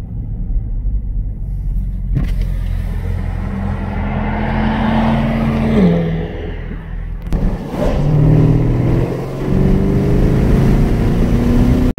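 2020 Camaro ZL1's supercharged 6.2-litre V8 pulling under acceleration. The engine note climbs, drops at a gear change about six seconds in, then climbs again through the next gear.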